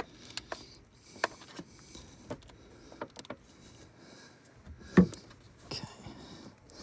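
Scattered light metal clicks and knocks of hand tools being worked onto a bolt in an engine bay, with one louder knock about five seconds in.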